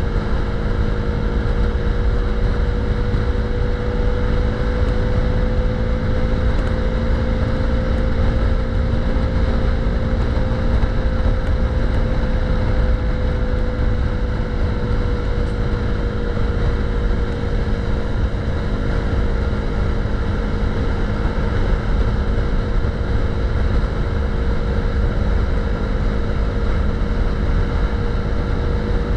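KTM 390's single-cylinder engine running at a steady cruise, its note rising slightly about eight seconds in and easing back down a few seconds later, with wind noise on the microphone.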